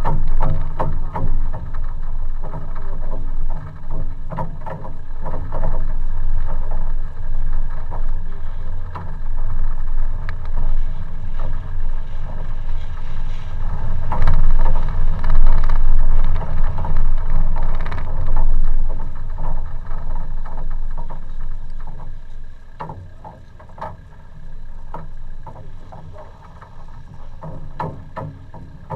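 Four-by-four bouncing along a rough dirt track, heard from its bonnet: a steady low engine and wind rumble with frequent knocks and rattles from the bumps. It quietens over the last several seconds as the vehicle slows to a stop.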